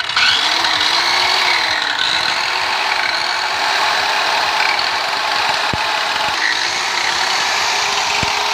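INGCO corded circular saw running at full speed with no load, the blade spinning freely in the air: a loud, steady motor whine. Two brief clicks come about two-thirds of the way through and near the end.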